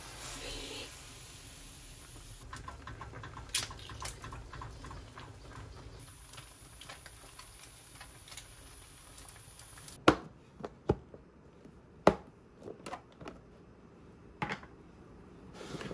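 Doenjang soup with greens and tofu boiling in a heavy pot, a steady bubbling with many small pops. About ten seconds in this gives way to a run of sharp knocks and clatters as a plastic mixing bowl and a plastic food container are handled on a table.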